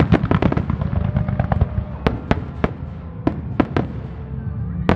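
Starmine fireworks display: a rapid salvo of sharp shell bursts for the first second and a half or so, then single bangs about every half second, thinning out toward the end.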